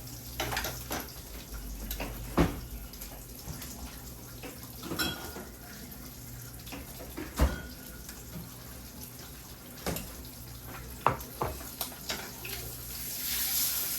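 Utensils knocking and clinking against dishes and pans now and then as food is served, over a steady low hum. A frying hiss builds near the end.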